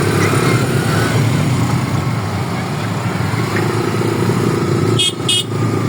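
Engine running steadily at a low drone during a river crossing, with two short high-pitched beeps about five seconds in.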